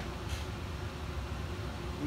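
Room tone: a steady low hum under a faint hiss, with one brief soft rustle about a third of a second in.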